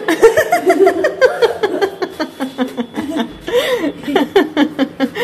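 High-pitched laughter: quick repeated bursts of giggling, about four or five a second.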